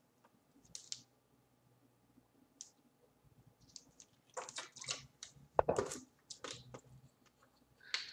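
Plastic water bottle handled while drinking: scattered crinkles and clicks of the plastic, with the loudest about halfway through.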